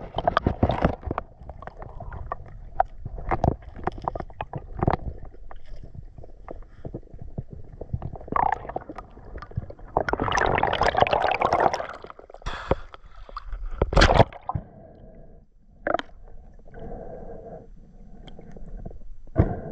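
Underwater recording: water churning and gurgling with scattered clicks and knocks, a dense rush of bubbles about ten seconds in, and one sharp crack a few seconds later.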